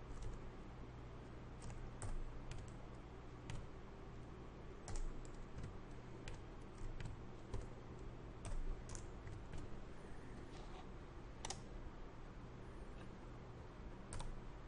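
Computer keyboard typing: scattered, irregular key clicks, with a faint steady low hum underneath.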